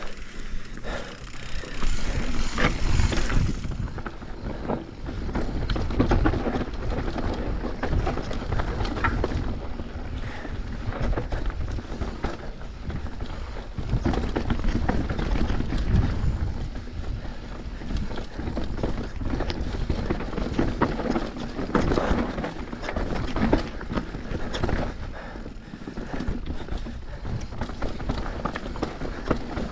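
Downhill mountain bike riding a rough dirt trail: a steady rush of tyre and wind noise with frequent knocks and rattles from the bike over bumps and roots.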